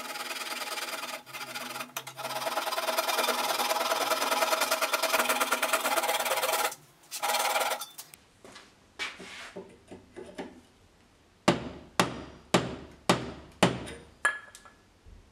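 A fine-toothed Japanese pull saw cutting a slot into the end of a hardwood handle, steady rasping strokes for several seconds, then stopping. After a pause, a hammer strikes about seven times, roughly two blows a second, as the small axe head is fitted onto the handle.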